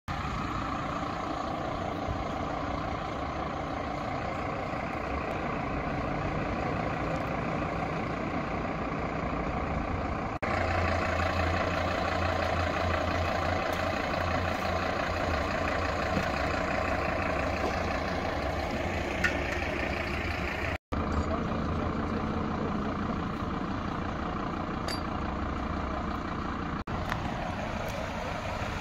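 Heavy diesel trucks idling, a tilt-tray tow truck and a fire engine, making a steady low engine rumble. The rumble grows louder and deeper for about ten seconds from about a third of the way in, then settles back.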